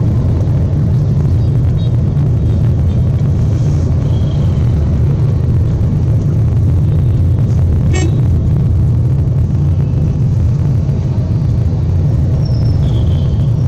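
Steady low rumble of a moving road vehicle, heard from inside it, with one sharp click about eight seconds in.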